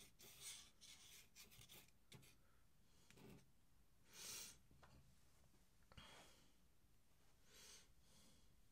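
Faint scratching of a dip pen's metal nib on paper: several short strokes with pauses between, very quiet.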